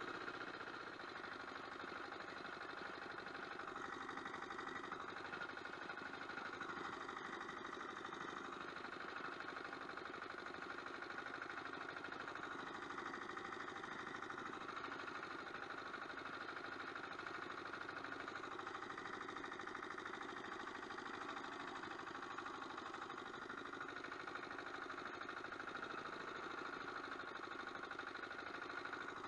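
Agria 1900 walk-behind tractor's engine running steadily under load as it pulls a homemade cultivator through grassy ground.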